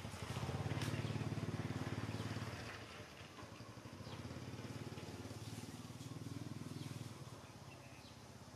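A small engine running steadily, louder for the first two and a half seconds and then quieter, with a few faint high chirps.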